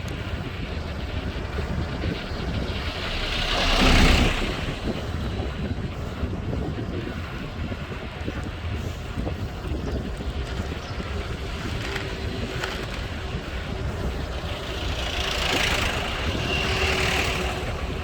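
Steady wind rushing over the microphone of a camera on a moving road bike. A motor vehicle passes close by about four seconds in, and another passes more gently near the end.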